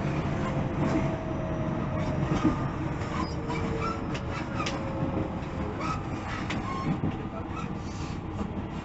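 JR Central 313 series 0-subseries electric train running: a steady rumble with scattered clicks, and a faint thin tone that slowly falls in pitch over the first few seconds.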